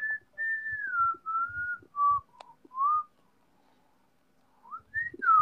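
A person whistling a short tune: a run of clear notes drifting downward in pitch, a pause, then a few rising notes near the end.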